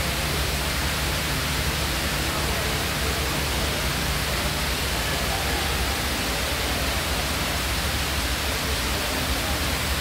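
A tall indoor waterfall, water streaming down a multi-storey wall, giving a steady, even rush of falling water.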